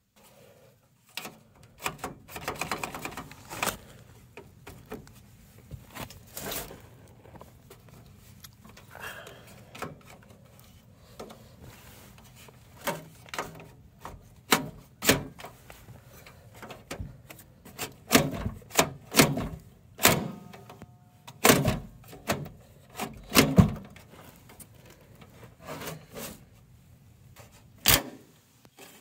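Clicks, knocks and rattles of a Dell desktop tower's sheet-metal case and plastic drive caddy being handled, with a rattle early on and a faster run of louder knocks in the second half, ending in one sharp knock.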